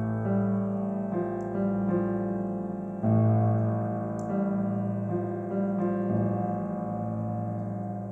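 Solo piano playing a slow improvised piece: chords struck every second or so over a held low bass note, with a louder chord about three seconds in.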